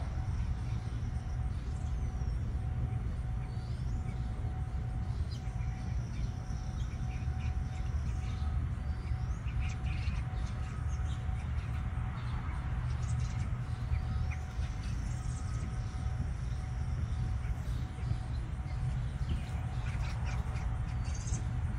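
Outdoor ambience dominated by a steady low rumble with a constant faint hum. Thin, high bird calls and short sliding whistles come every few seconds. Light splashing from an American robin bathing in a birdbath comes about halfway through and again near the end.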